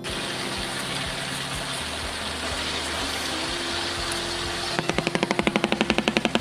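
A steady hiss for most of the clip, then, about three-quarters of the way in, a fast, even run of sharp clacks, about eight a second: a shoebill clattering its bill, the machine-gun-like clatter it uses to call.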